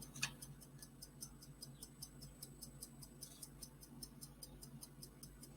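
Faint, even ticking, about five or six ticks a second, over a low steady hum.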